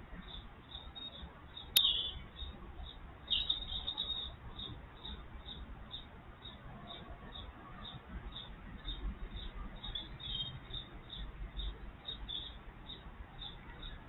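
Small bird chirping over and over, about three short high chirps a second, with a louder flurry of chirps about three seconds in and a single sharp click just before it.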